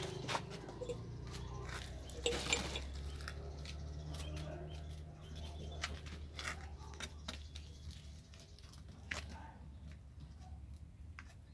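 Five-week-old kittens scuffling and pouncing around a plastic tarp and cardboard: scattered rustles and light knocks, loudest about two and a half seconds in, over a low steady hum.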